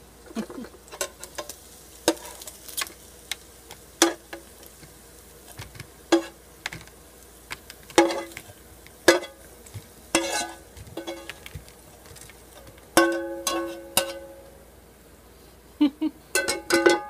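A cooking utensil knocking and scraping in a frying pan as cooked salmon pieces are lifted out onto a plate: sharp taps about once a second, with a couple of strikes near the end ringing on briefly.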